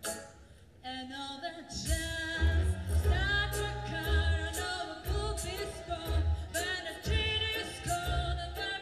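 Live stage performance of a song over the hall's loudspeakers: after a brief pause, a singer comes in about a second in, joined by a heavy bass beat.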